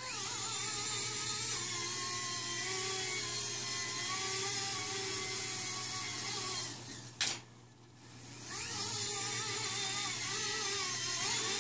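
Blade mSR X micro RC helicopter's small electric motors and rotor blades whining in flight, the pitch wavering as the throttle is worked. About seven seconds in, the whine drops away with a single sharp tap, then rises again about a second later as the motors spool back up.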